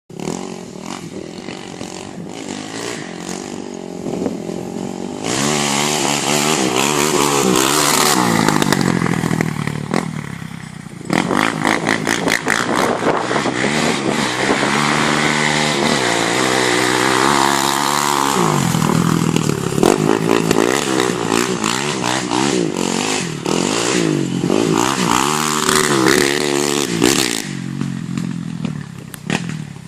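Polaris Predator 500 ATV's single-cylinder four-stroke engine idling, then revved hard over and over, its pitch sweeping up and falling back, with a short drop back to idle around ten seconds in.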